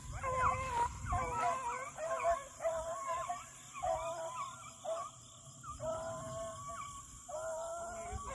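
A pack of beagles baying together while running a rabbit track, with overlapping voices: short choppy notes mixed with a few long drawn-out bawls.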